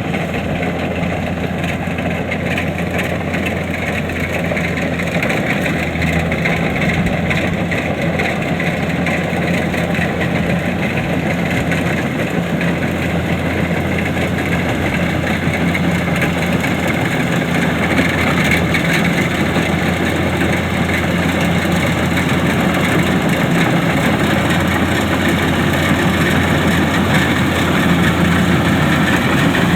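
Kubota DC-70 combine harvester working in a rice field, its engine running at a steady pitch and slowly getting louder.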